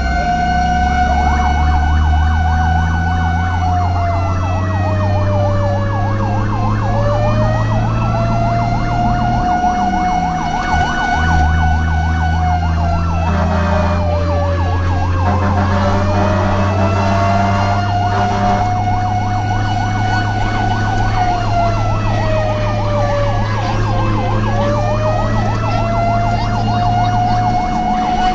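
Fire engine siren sounding continuously. A slow wail dips and rises about every nine seconds, with a fast warbling tone layered over it. Beneath it runs a low steady engine rumble that drops out briefly about ten seconds in.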